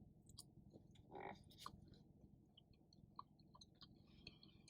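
Faint chewing with scattered small mouth clicks, someone eating takeout food close to the microphone.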